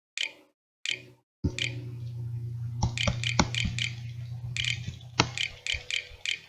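Scattered short clicks of typing on a laptop keyboard, irregularly spaced, over a steady low hum that comes in about a second and a half in.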